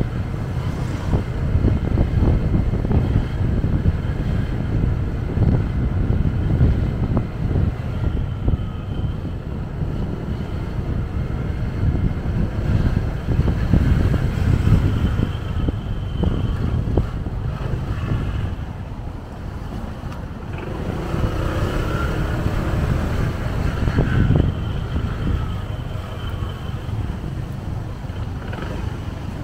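Wind buffeting the microphone of a motorbike riding slowly in traffic, with the rumble of the bike and the surrounding cars and scooters. Higher-pitched traffic sounds come through about two-thirds of the way in.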